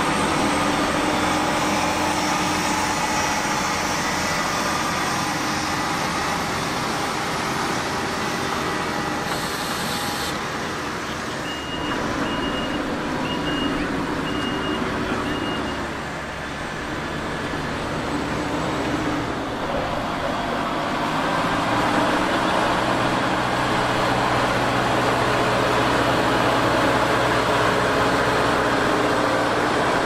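Merlo MultiFarmer 40.9CS telehandler's 156 hp engine running under load while pulling a four-furrow plough. Its note changes a little under halfway through. A reversing alarm then beeps about once a second for a few seconds. From about two-thirds of the way in the engine runs louder and steadier as ploughing resumes.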